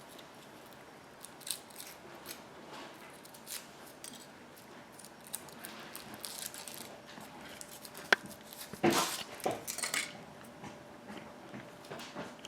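Faint crinkling, taps and clicks of hands opening a Kinder Surprise egg, its foil wrapper and chocolate shell, with a louder burst of rustling about nine seconds in.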